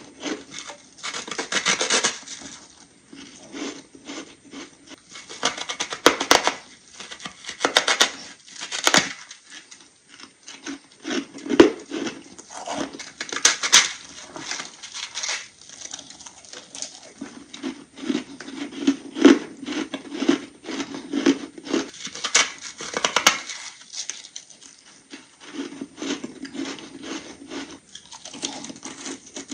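Close-miked crunching of ice chunks being bitten and chewed: irregular bursts of crackling crunches, some sharp and loud, with quieter chewing in between.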